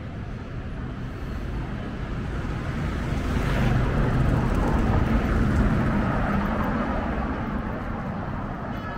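A vehicle passing along the street, its noise swelling to a peak about four to six seconds in and then fading.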